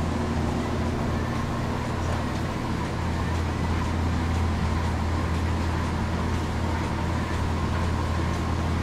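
Steady low hum of a dairy milking system running: the vacuum pump drones continuously while the milking units work, with faint regular ticks roughly once a second.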